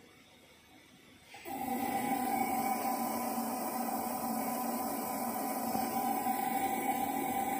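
Blue AC motor on a test bench, driven by a Lenze EVS9323-ES servo drive under test, running at a steady speed with an electrical hum and whine over a hiss. It switches on abruptly about a second and a half in.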